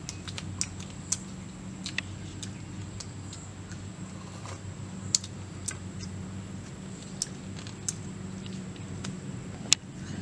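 Eating sounds: scattered sharp clicks and smacks of chewing and picking meat off cow leg bones by hand, one loud click near the end, over a steady low hum.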